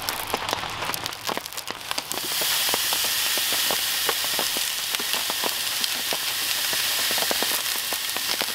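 Raindrops sizzle and tick on a hot steel grill. About two seconds in, a ribeye steak goes onto the grill and a steady sizzle of searing meat starts, with crackling pops through it.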